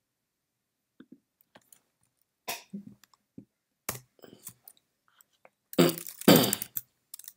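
Small clicks and mouth noises close to a microphone, then a short, louder throat-clearing sound about six seconds in.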